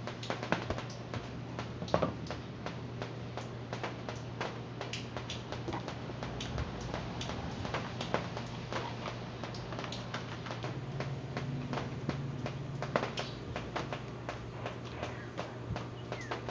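Hands handling a plastic control box and electrical wires and a plug on a table: scattered clicks and light taps, over a steady low hum.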